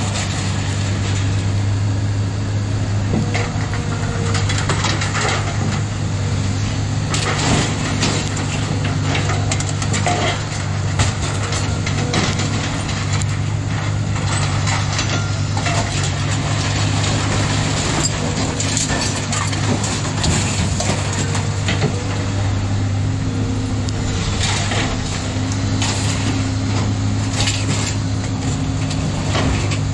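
Excavator grapple pulling scrap metal out of a pickup truck bed: repeated clanks, crunches and scraping of metal on metal. Over it runs a steady engine drone.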